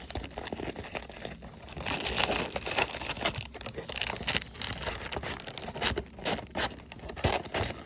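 Packaging on a hobby box of baseball cards being torn and crinkled open by hand: irregular crackling and snapping rustles.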